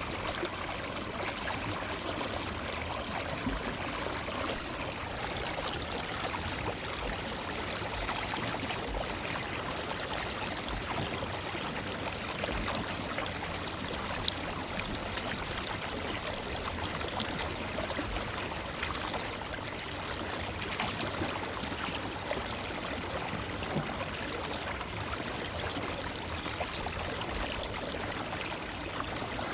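River water flowing and burbling steadily over rocks, with a few faint ticks from splashes.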